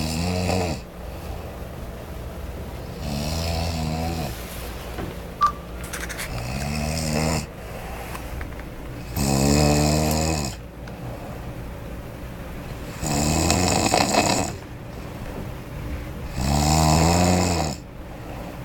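A man snoring loudly in his sleep: rough, pitched snores come roughly every three and a half seconds, five in all, the third and fourth the loudest. A brief sharp click falls between the first two.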